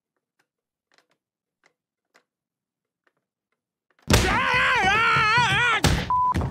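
A cartoon fall down the stairs: after a few faint ticks, a loud sudden tumble of heavy thuds about four seconds in, with a yell that wobbles up and down in pitch. Short repeated beeps begin near the end.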